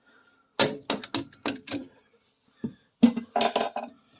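Sharp metal-on-metal strikes: a quick run of about six blows, a single blow, then a denser clatter near the end, as a stuck bolt is hammered out of the car's rear suspension.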